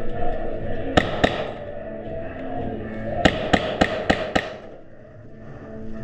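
Sharp cracks of airsoft fire: two about a second in, then a quick run of five, roughly three a second.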